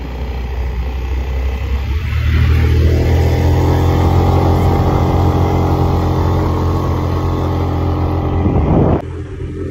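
Yamaha Aerox 155 scooter's single-cylinder engine pulling hard up a steep hill climb, its note rising about two seconds in and holding steady under load. Near the end it drops suddenly as the throttle is closed.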